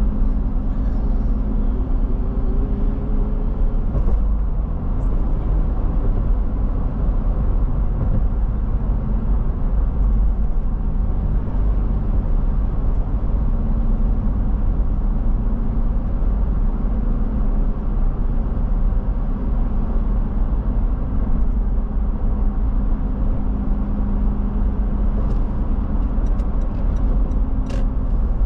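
Car driving at a steady pace: continuous low engine and road rumble, with a few faint clicks near the end.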